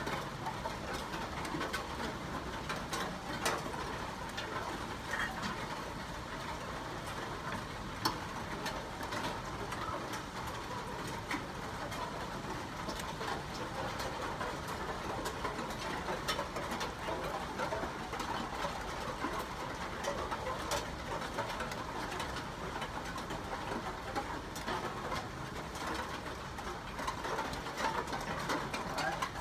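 Steady rain falling, an even hiss with many scattered sharp drips and taps.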